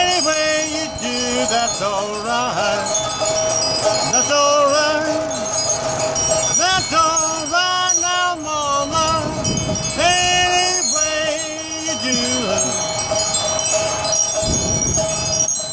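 Music with bright, chiming tones and pitched notes that slide and waver, over a steady held tone.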